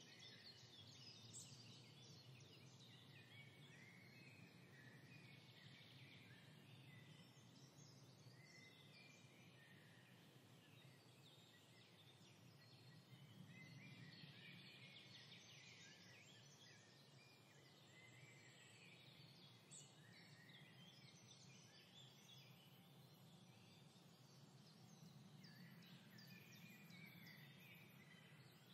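Near silence: a faint low hum of room tone, with faint chirping of birds coming and going throughout.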